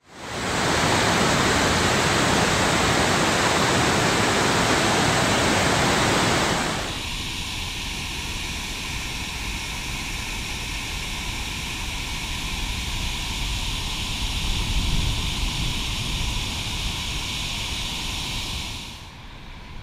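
A loud, even rushing noise for about the first seven seconds, then the steady rush of water pouring down the stepped masonry spillway of the New Croton Dam. The sound drops in level near the end.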